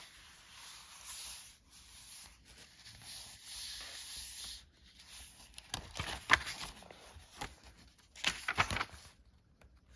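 Paper rustling and crinkling as the pages and inserts of a handmade junk journal are turned and handled, with sharper crackles a little past halfway and again near the end.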